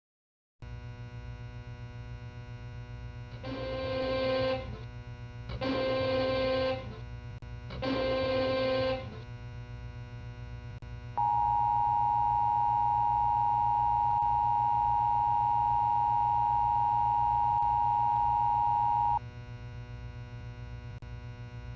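Emergency Alert System broadcast signal over a steady electrical hum: three short bursts of the digital header data, about a second each, then the two-tone attention signal held steady for about eight seconds before cutting off.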